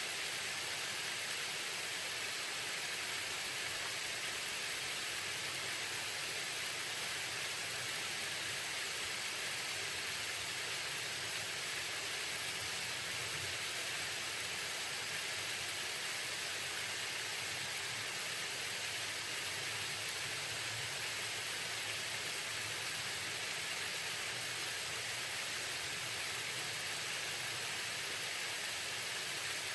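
Waterfall: a steady, even rush of falling water with no change.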